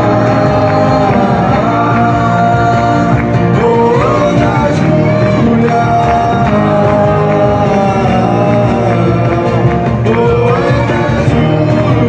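A live band playing a song, with electric guitars through small amplifiers and a singer, continuously throughout.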